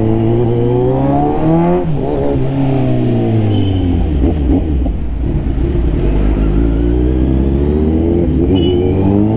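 Kawasaki Z900 inline-four engine through a full-system Mivv exhaust, accelerating under load. The pitch climbs, drops at a gear change about two seconds in, eases off around four to five seconds in, runs low and steady, then climbs again near the end.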